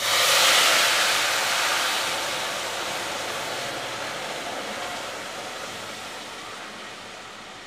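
Sugar syrup poured into semolina roasted in hot ghee, setting off a sudden loud sizzle and hiss of steam that slowly dies away.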